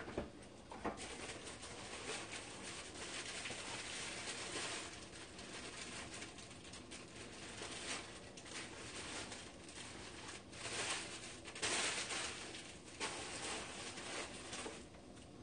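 Stovetop cooking noise: pork and onions sizzling in a frying pan beside a pot of udon noodles boiling, a steady crackling hiss that swells and fades.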